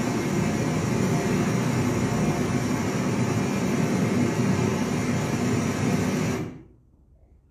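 Loud, steady roar of a waterfall's rushing water, played from a video over room speakers. It cuts off suddenly about six and a half seconds in as the video ends.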